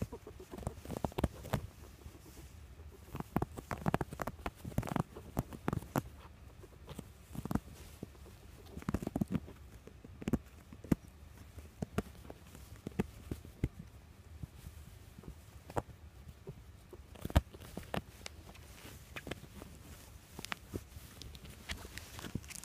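Two ferrets wrestling on soft fabric: irregular soft knocks, scrabbling and rustling, coming in flurries with short lulls between.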